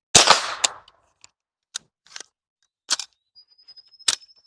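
.22LR AR-15 rifle shot, a sharp loud crack with a short ringing tail just after the start, then a second sharp crack about half a second later. Scattered lighter clicks and knocks follow, with a faint high steady tone near the end.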